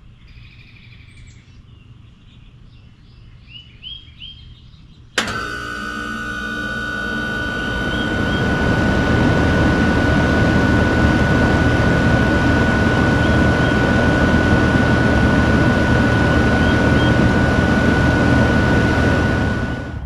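2010 Trane XB13 heat pump outdoor unit starting up about five seconds in. It comes on with a sharp click, builds over a couple of seconds as the compressor and fan come up to speed, then runs steadily with a constant high whine. A few faint bird chirps come before the start.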